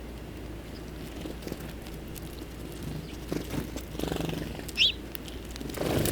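A single short, sharp bird chip call a little before the end, over a steady low background rumble with some soft rustling.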